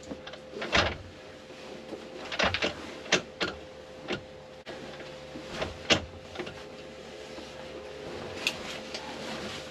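Hands and a paper towel wiping down a diesel engine's metal casing: a dozen or so scattered light knocks, clicks and rustles, over a faint steady hum.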